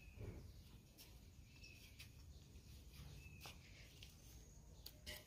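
Near silence, with a few faint clicks and a few faint short bird chirps.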